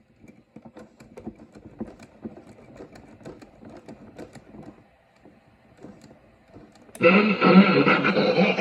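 1964 General Electric C-403D vacuum-tube AM clock radio tuned between stations: faint crackling static with snatches of broadcast. About seven seconds in, a station comes in suddenly and loudly.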